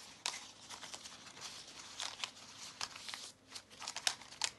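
Folded paper pleats of a circular paper fan crinkling and crackling under the fingers as they are pressed and tidied flat, a quick irregular run of small crisp crackles.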